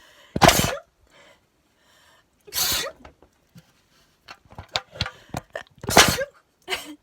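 A woman sneezing hard three times, with the sneezes about two and three seconds apart; these are induced sneezes. Between the second and third sneeze comes a quick run of short clicks.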